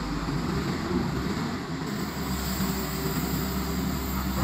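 Cat tracked hydraulic excavator's diesel engine running steadily under working load as the boom and bucket dig.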